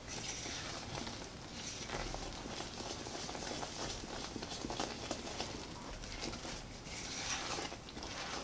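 Butter, brown sugar and molasses caramel sauce simmering in a small saucepan, faint bubbling and popping, while a silicone spatula stirs and scrapes around the pan.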